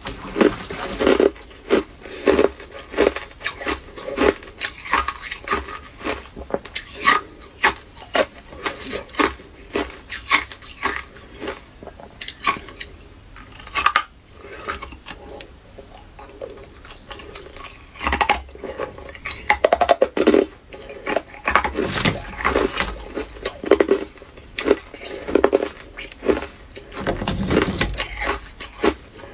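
Hard ice being bitten and chewed, a rapid irregular run of crunches and cracks, with a plastic bag crinkling as ice chunks are taken from it.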